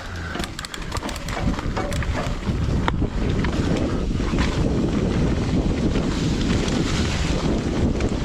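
Wind rushing over the microphone as a Santa Cruz Nomad mountain bike picks up speed down a dirt trail. It grows louder over the first couple of seconds, then holds steady. Sharp ticks and rattles from the bike and tyres come through early on.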